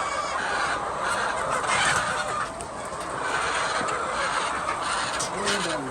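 A flock of chickens clucking and calling over one another.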